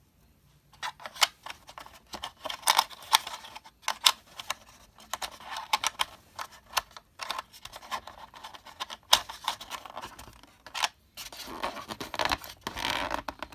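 Packaging being handled and pulled open: irregular crinkling, tearing and scraping with sharp clicks, starting about a second in, as something stuck in the box is worked loose.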